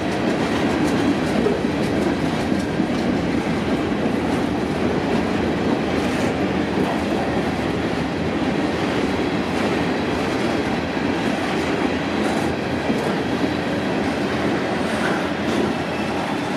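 Ballast train of GREX hopper cars passing at close range: a steady rumble of steel wheels on the rails, with occasional clicks as wheels cross rail joints.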